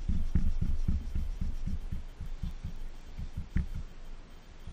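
Rhythmic scrubbing strokes on a motorbike's exhaust header pipe, heard as low thumps about four a second that weaken and stop a little before the end.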